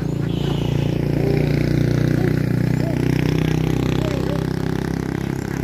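A motor vehicle engine running, growing louder about two seconds in and then easing off, with ducks quacking briefly now and then.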